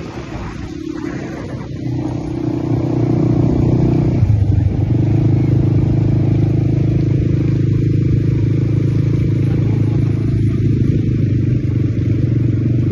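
ATV engine running, getting louder about two seconds in and changing note about four seconds in, then running steadily.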